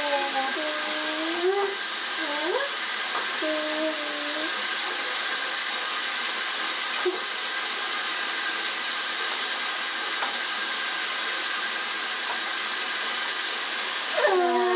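A steady hiss, with a toddler's short sliding vocal sounds during the first few seconds and again near the end.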